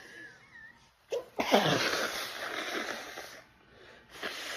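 A woman sneezing in a sneezing fit, which the title puts down to allergic rhinitis. A sharp catch comes about a second in, then a loud sneeze with a falling cry of voice that trails into a long rush of air, and a shorter burst near the end.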